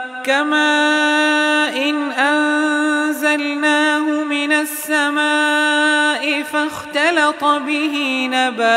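A man reciting the Quran in melodic tajweed style, holding long drawn-out notes broken by brief ornamental turns in pitch.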